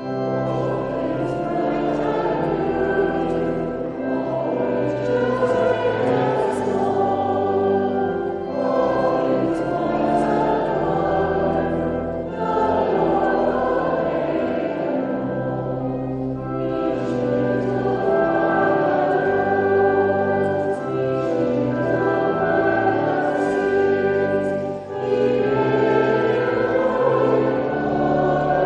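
Choir singing with orchestral accompaniment, in long held phrases.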